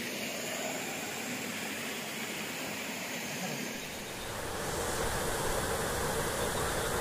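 Steady outdoor hiss, then about four and a half seconds in a louder, gusty rush with a low rumble, as of wind buffeting the microphone.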